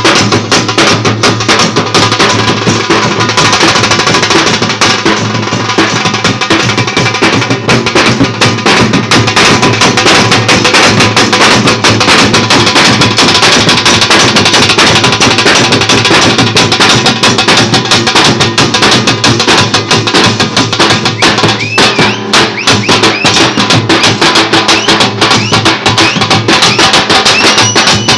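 Loud baja band music: fast, dense drumming with melody instruments held over it, and a few short gliding notes near the end.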